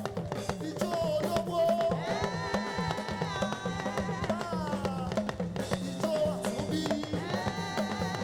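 Live gospel praise band playing an upbeat song: drums and percussion keep a steady beat under a repeating bass line, with a melody that glides between held notes.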